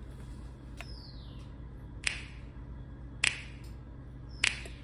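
Finger snaps on a steady beat, about one every 1.2 seconds, opening an R&B song, over a low steady hum.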